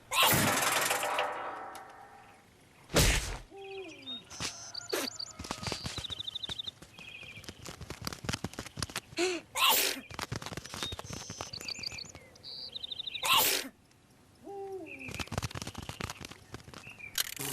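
Cartoon insect sound effects: rapid high chirping trills, short squeaky calls that fall in pitch, and quick clicking. Four loud sudden thumps come at the very start and about 3, 10 and 13.5 seconds in.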